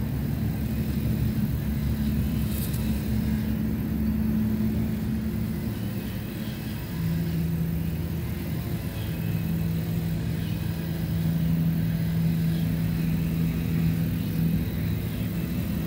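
Steady low rumble of a running engine, with a hum that steps down slightly in pitch about seven seconds in.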